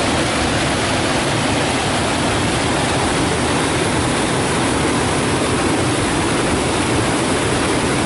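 River rapids rushing and churning over rocks: a loud, steady roar of whitewater.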